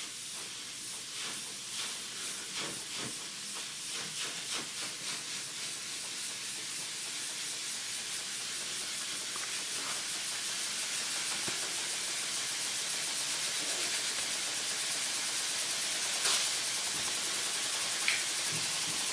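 Small live-steam spinning 'UFO' model running under steam: a steady hiss with a fast pulsing that quickens and grows louder as the saucer rotor gathers speed. Two light clicks near the end.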